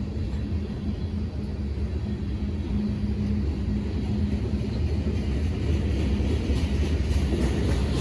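Low, steady rumble of a diesel locomotive's engine with a steady hum, slowly growing louder.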